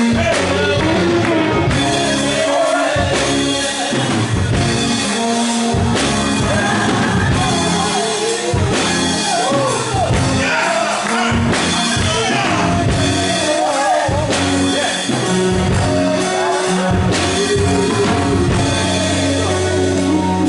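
Live gospel praise music: voices singing over a band with drums and bass.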